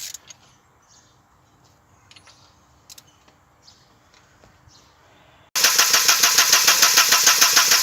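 A few faint clicks and taps, then, a couple of seconds before the end, the 1992 Audi 80's engine starts cranking on the starter motor with an even, rapid chugging, without firing. It is a crank-no-start: the plugs are dry and the fault lies in the fuel supply, a dead fuel pump.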